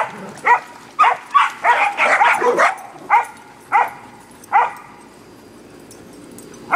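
Dog barking in play: a quick run of short, sharp, high barks, about two a second, then a pause of about two seconds near the end.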